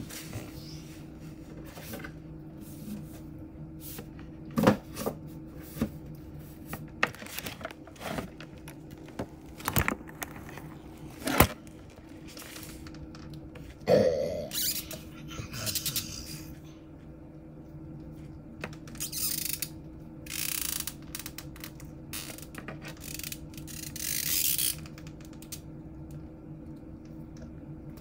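Handling noise from a plastic fashion doll being posed and set down on a wooden nightstand: a string of small clicks and knocks, one louder knock, then a few short rustling hisses, all over a steady low hum.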